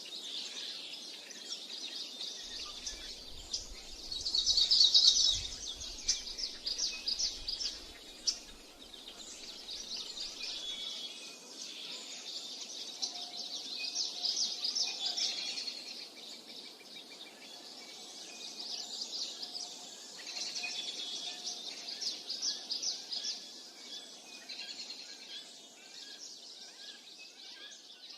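Birds chirping and singing in a dense chorus of rapid, high repeated notes, with a louder flurry of calls about four to six seconds in.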